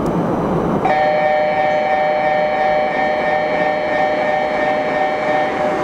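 Seoul Line 9 subway train approaching with a rumble, then sounding its horn about a second in: a steady chord of several tones held for about five seconds.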